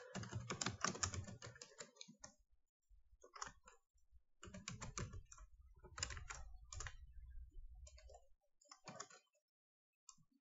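Typing on a computer keyboard: bursts of key clicks separated by short pauses, a long run at first, then shorter groups, stopping about nine seconds in.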